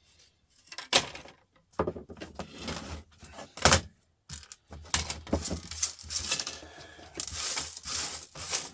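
Small laptop parts being handled on a bench: a few sharp knocks and clatters, then irregular scraping and rustling.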